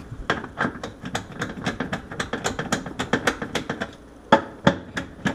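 Rapid, irregular clicking of a screwdriver turning screws out of the sump at the bottom of a dishwasher tub, with two sharper knocks a little after four seconds in.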